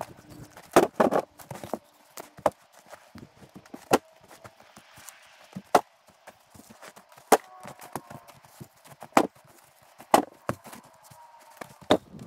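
Firewood rounds being loaded into a plastic sled, each one landing with a sharp wooden knock against the other logs and the sled. There are about a dozen knocks at irregular intervals, one or two every second or so.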